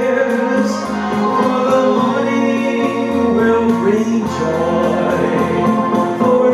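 Backing music for a song, with a man singing along into a handheld microphone.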